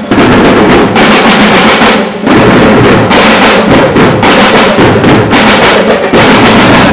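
Marching drum band playing loud, continuous snare drum rolls over bass drum beats, with brief breaks roughly once a second.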